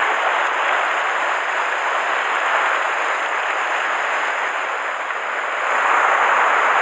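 Mountain stream rushing over rocks and small cascades: a steady wash of water noise that grows a little louder near the end.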